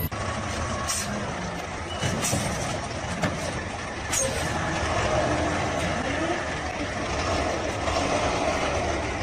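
Steady noise of heavy road vehicles, with a few short clicks.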